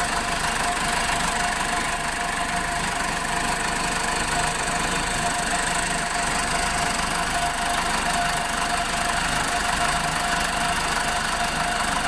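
Case 480 backhoe loader's freshly overhauled engine idling steadily.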